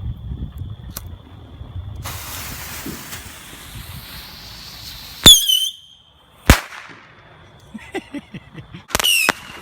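Consumer fireworks going off: about three seconds of hissing, then a loud bang with a short falling whistle and, about a second later, a sharp crack. Near the end comes a quick string of bangs, each trailed by a short falling whistle.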